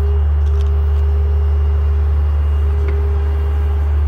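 John Deere 50G compact excavator running steadily while it digs: an even, low engine drone with a constant higher hum over it, and a couple of faint clicks.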